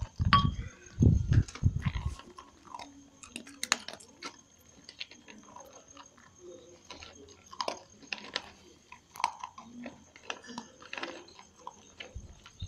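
Dog chewing and eating food: a long run of small irregular crunching clicks, with a few louder low thumps in the first two seconds.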